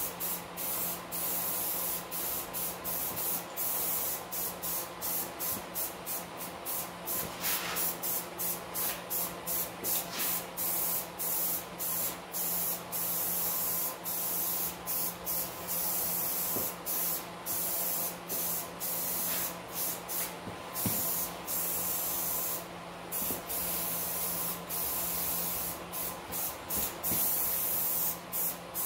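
Aerosol spray can of engine paint hissing in many short bursts with brief pauses between them as it is sprayed onto the engine block.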